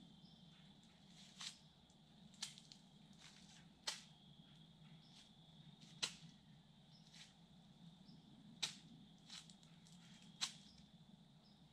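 Quiet woodland: a faint steady high-pitched tone underlies about seven short sharp snaps or crackles, irregularly spaced a second or two apart.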